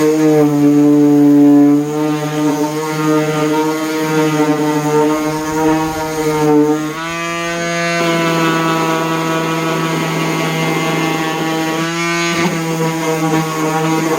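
DeWalt palm orbital sander running with a 3M Xtract Cubitron II disc against cedar wood: a steady electric motor whine, its pitch shifting a little about halfway through and again near the end as the load on the disc changes.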